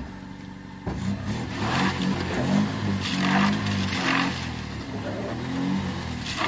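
Fiat Panda 4x4 engine idling, then revving hard about a second in as the car tries to drive out of deep mud, its wheels spinning. The engine note rises and falls in repeated surges.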